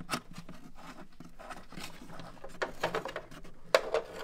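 Light metallic clicks and taps from a 10 mm bolt being threaded back in and tightened down over a wiring ground terminal. There is a quick run of small clicks between about two and three seconds in, and one sharper click near the end.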